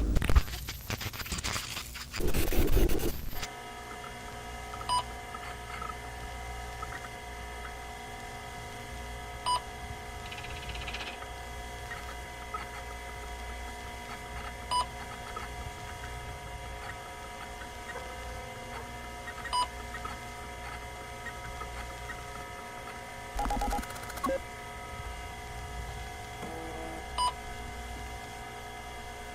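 Harsh bursts of static for the first few seconds, then a steady electronic drone of several held tones, with a short beep roughly every five seconds and another brief burst of static about 24 seconds in.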